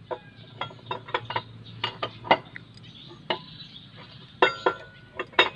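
Irregular metallic clinks and taps of hand tools on an Isuzu 4BE1 diesel engine during valve clearance adjustment: about a dozen sharp knocks, a couple of them ringing briefly near the end.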